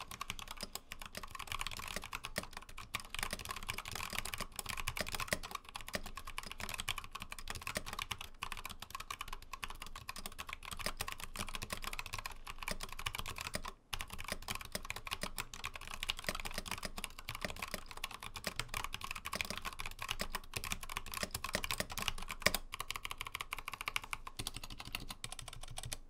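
Continuous typing on an Input Club Kira mechanical keyboard with Hakko Clear switches and PBT keycaps: a dense run of keystroke clicks, with one short break about halfway through. The stabilized keys give no rattle or pinging.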